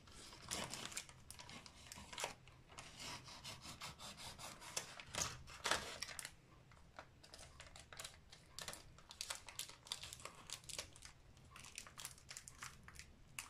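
Plastic film on a tray of olives being cut open with a knife and pulled off: quiet crinkling and tearing of thin plastic with many small clicks.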